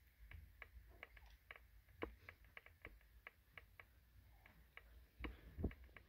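Faint, irregular clicking, a few sharp ticks a second, with two slightly louder knocks near the end, over near silence.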